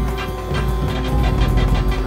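Music with a steady held drone and quick, even percussive strikes, a deep low rumble building through the middle.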